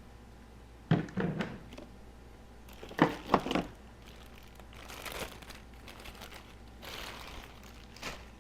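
Plastic packaging rustling and crinkling while parts of a cheap cordless grinder kit are handled, with several light knocks as pieces are picked up and set down.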